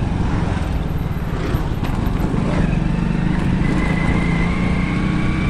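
Motorcycle engine running steadily, heard from the rider's seat while riding along. A thin steady high tone joins about halfway through.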